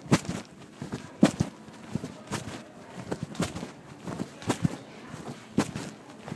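Racquetball being hit and smacking off the court walls, sharp hard knocks about once a second, some in quick pairs.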